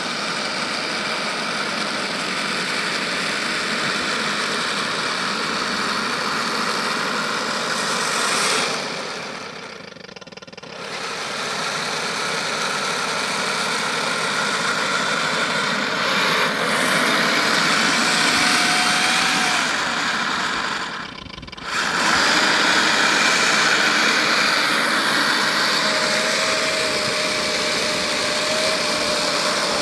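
3D-printed radio-controlled model tank running over grass: a steady whir from its drive motors, gearing and tracks. The whir drops away twice, briefly, and a faint whine shows through near the middle and again near the end.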